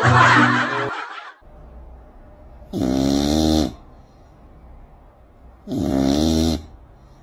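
Sleeping cats snoring: a rasping snore in the first second, then two loud, drawn-out snores about three seconds apart.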